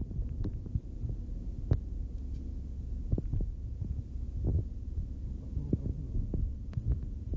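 Low, steady rumble of a moving car heard from inside the cabin, with irregular knocks and thumps scattered through it, one stronger knock about two seconds in.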